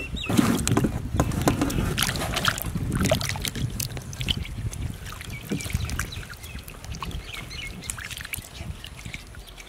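Water sloshing and splashing in a steel pot as raw potatoes are scrubbed by hand, the potatoes knocking against each other and the pot; louder in the first few seconds, then softer.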